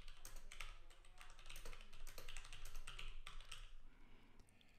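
Typing on a computer keyboard: a quick, irregular run of faint keystrokes that stops a little before the end.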